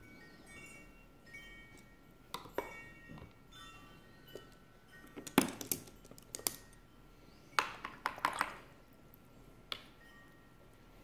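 Paintbrushes clicking and knocking against one another, the table and a plastic brush-rinse water cup as they are picked up and rinsed, a series of sharp clinks with the loudest cluster around the middle. Soft chime-like background music plays in the first few seconds.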